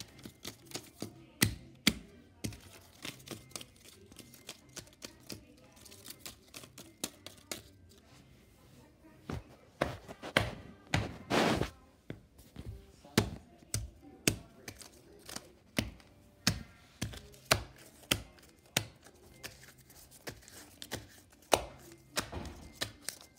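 Irregular sharp taps and knocks of hands and a paper cutout against a wooden floor, with a longer rustle of the paper being torn and crumpled about ten seconds in.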